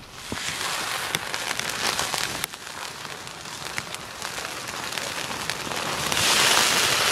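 Trout steaks sizzling on a hot grill grate over charcoal: a steady hiss with scattered sharp crackles that swells about six seconds in as another steak goes down.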